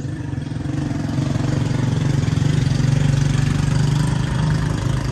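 An engine running at a steady low pitch, growing louder over the first three seconds and easing off a little near the end.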